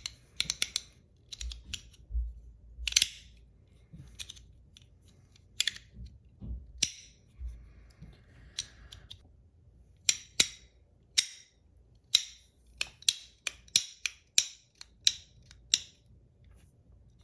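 Sharp clicks and clacks from a PEI and aluminum Battle Master 1.1 fidget being worked by hand, irregular at first, then coming about twice a second near the end.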